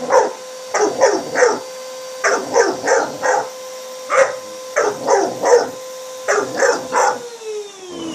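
Cane Corso puppy barking repeatedly at a running vacuum cleaner, in quick runs of two to four barks over the vacuum's steady hum. Near the end the vacuum is switched off and its motor winds down in a falling whine.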